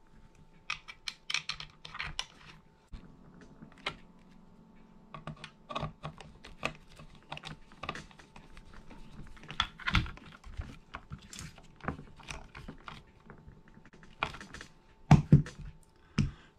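Lock screws of an 1878 trapdoor Springfield rifle being handled and threaded in by hand: irregular small metallic clicks and taps against the wooden stock and lock, with a couple of louder knocks near the end.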